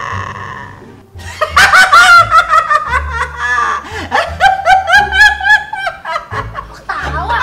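A man's long, high-pitched maniacal Joker-style cackle that slides up and down in pitch. It starts after a brief pause about a second in, over background music.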